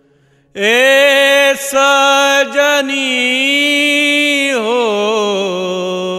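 Male voice singing a slow, drawn-out phrase of a Bhojpuri folk song. It starts about half a second in, holds long notes, and turns into a wavering, ornamented run near the end.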